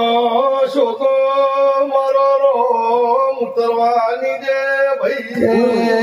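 Male voice singing a long, drawn-out Gujarati devotional aalap in held, slowly bending notes over a steady drone, with a brief break about five seconds in before a new phrase begins.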